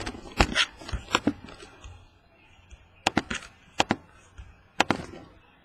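Laptop keyboard keys being pressed: a handful of sharp clicks in small, irregular groups of one or two, with pauses between.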